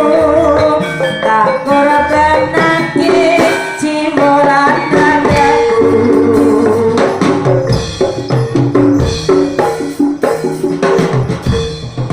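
Live jaranan ensemble music: a wavering melody line over drumming, with the drum strokes coming to the fore in the second half over a steady held tone.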